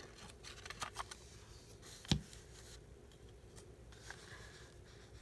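Quiet handling of paper journaling materials: a few light clicks and rustles, with one sharper tap about two seconds in.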